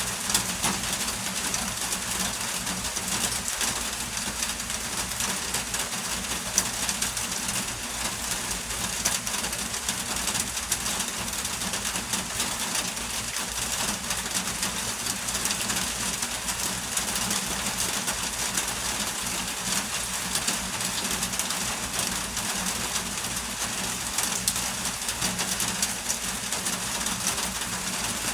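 Steady heavy rain falling, a dense even hiss full of fine ticks, with a faint low hum underneath.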